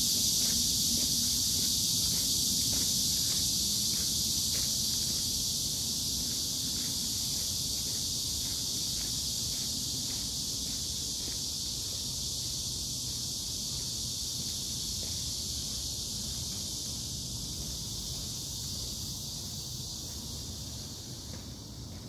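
Steady high-pitched insect chorus from the trees, slowly growing fainter, with light footsteps in the first few seconds.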